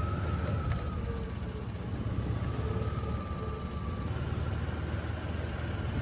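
Open Yamaha golf cart driving along a road, with steady low noise of wind on the microphone and tyres, and a faint steady whine over it.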